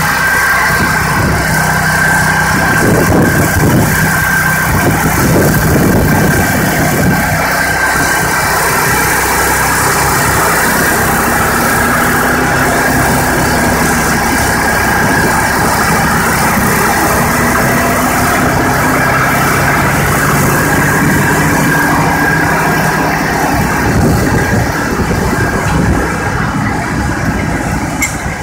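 Buffalo Turbine skid-mounted leaf blower running steadily at working speed: its 23 hp Kohler engine and turbine fan make a loud, continuous rush of air with a steady high tone over the engine's drone.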